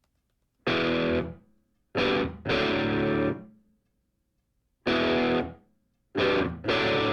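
Music: distorted electric guitar chords, about six in all, each struck and left to ring out, with short silent gaps between them.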